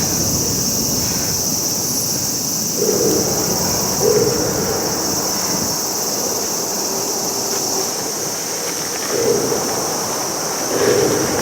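Steady noise of surf and wind at the seashore, with a high constant hiss and a few brief louder swells scattered through it.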